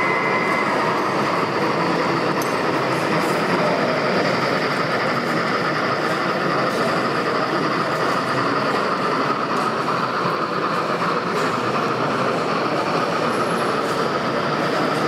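N-scale model freight train rolling past, a steady rattle of the small cars' wheels on the track.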